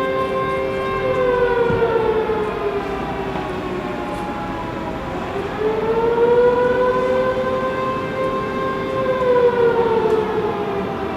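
Civil-defence-type alarm siren sounding a slow wail with a two-note chord. Its pitch holds high, sinks to a low point about halfway through, swings back up and holds, then begins to fall again near the end.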